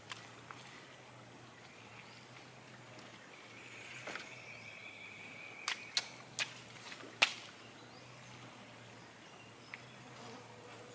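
Quiet outdoor background broken by a handful of sharp clicks or snaps, bunched around six to seven seconds in with the loudest near seven seconds, and a brief high steady tone lasting about two seconds a little before them.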